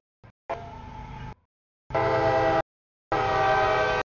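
CSX freight locomotive's horn sounding for a grade crossing: three blasts of a steady multi-note chord, the first quieter and about a second long, the last two loud and shorter.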